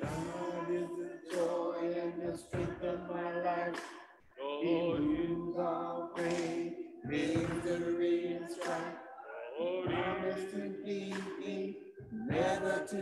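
Unaccompanied singing, held notes sung in phrases with short breaks between them.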